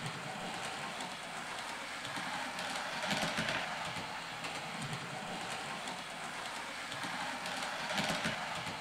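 00 gauge model motor luggage van running on the layout's track: a steady whirr of motor and wheels on rail, with louder rattling passes about three and eight seconds in.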